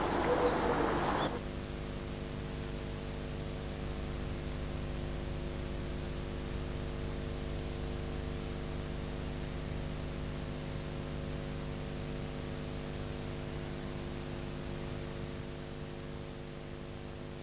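Steady electrical hum made of several fixed tones, with hiss underneath. It follows about a second of outdoor noise that cuts off abruptly, and it fades slightly near the end.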